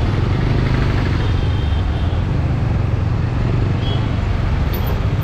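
TVS Apache RTR motorcycle's single-cylinder engine running steadily while riding through town traffic, with wind noise on the on-board action camera's internal microphone.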